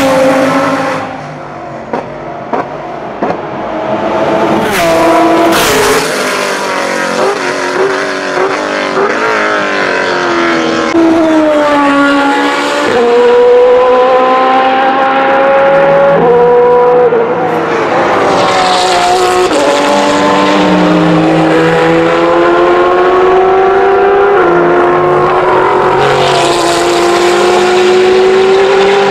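Racing car engines at full throttle, each tone climbing in pitch through a gear and dropping back at the shift, several times over; a few sharp cracks in the first few seconds.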